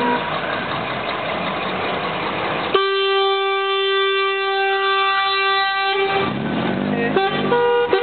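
A vehicle horn sounding one steady note for about three seconds, starting abruptly about three seconds in and cutting off around six seconds, between stretches of vehicle noise.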